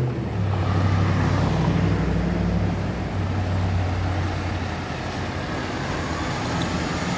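Fire ladder truck driving past: a heavy low engine drone with road noise, strongest for the first four seconds or so and then easing off.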